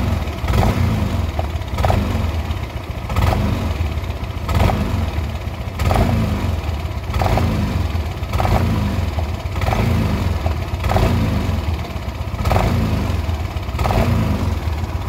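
Yamaha NMAX scooter's single-cylinder engine blipped over and over, about one rev every second and a half, with the rear wheel spinning free. Each blip brings a sharp click, the 'cetok cetok' from the CVT that is the fault under diagnosis.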